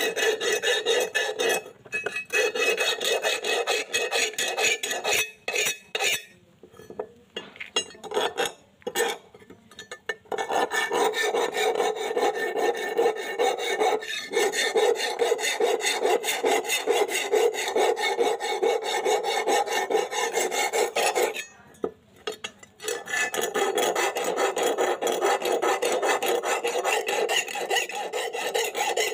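Flat hand file rasping back and forth across the rusty steel blade of an old hoe head, scraping off rust. The strokes come in short, broken spells for the first third, then run fast and steady, with one brief pause about two-thirds of the way through.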